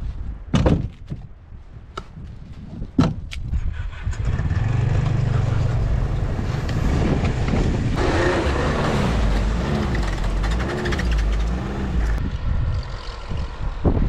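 Two sharp knocks, then a snowmobile engine running from about four seconds in, its pitch rising and falling again and again as it is throttled.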